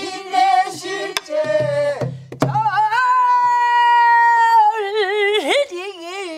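Pansori singing: voices sing the line "지내실제" over three strokes of a buk barrel drum. Then a single female voice holds a long note that breaks into a wide, heavy vibrato near the end.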